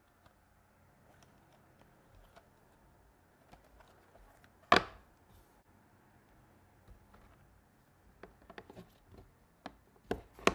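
Clear plastic model-train cases handled on a wooden tabletop: faint rustling, one sharp knock about five seconds in as a case is set down, then a run of small plastic clicks and taps near the end as a case is handled with both hands.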